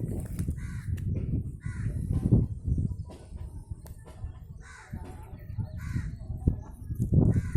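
Bird calling, four short calls spaced across a few seconds, over uneven low rumbling noise.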